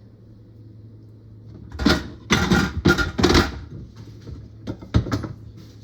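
Kitchen cupboard and dishes being handled: a quick run of loud knocks and rattles about two seconds in, then a single sharp click near the end, over a steady low hum.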